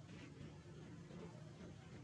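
Near silence: faint steady low background noise.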